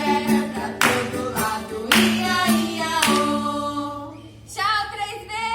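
Women singing a children's farm-animal song to a steady beat, breaking off briefly about four seconds in before voices resume.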